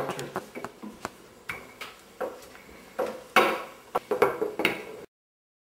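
Kitchen clatter while pie dough is rolled out: irregular knocks and clinks of utensils, a rolling pin and dishes on a countertop, about a dozen in all, cutting off suddenly about five seconds in.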